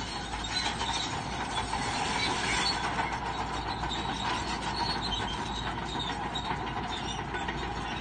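Crawler bulldozer at work, its steel tracks giving a continuous metallic clatter under the engine's steady running.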